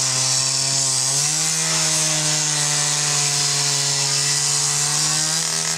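Petrol cut-off saw with an abrasive disc cutting through a car's steel body. The engine runs at high speed under load over a steady hiss of the disc grinding the metal, and its pitch steps up slightly about a second in.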